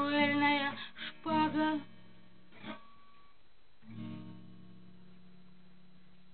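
Acoustic guitar strummed under a woman's singing voice, ending the song about two seconds in. A single strum follows, then a soft last note about four seconds in, leaving a faint low hum.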